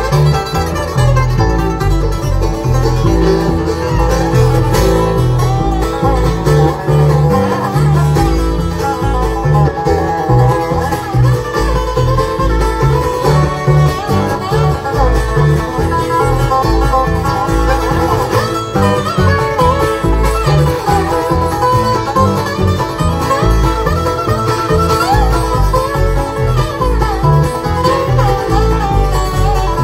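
A bluegrass band playing live through a PA: banjo, acoustic guitar and fiddle over a steady upright-bass pulse.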